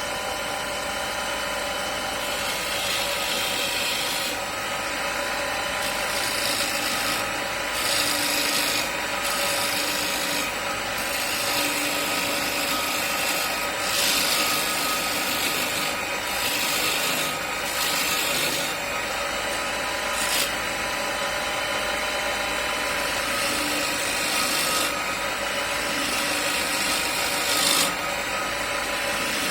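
Homemade wood lathe running with a steady motor hum while a hand-held roughing gouge cuts a spinning square oak blank, giving repeated stretches of rasping shaving noise, a second or more each, as the tool is pressed in and eased off.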